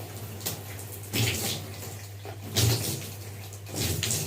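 Running water splashing in a bathtub as conditioner is rinsed out of long hair, with three louder gushes, under a steady low hum.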